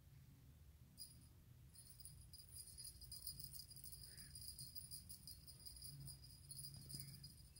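Small bell inside a cat's wand toy ball jingling in quick, light shakes as the toy is jiggled and batted by a cat. The jingling starts about a second in, pauses briefly, then runs on.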